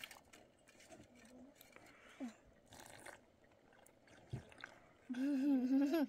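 Faint clicks and soft chewing as a child eats from a small dish. About five seconds in, livestock gives one loud, wavering bleat lasting about a second.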